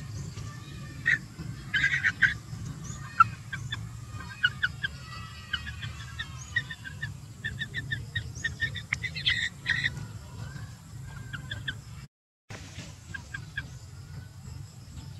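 Featherless chicken calling in short, high, repeated clucks and peeps, often in quick runs of several notes, over a steady low rumble. The sound cuts out for a moment about twelve seconds in.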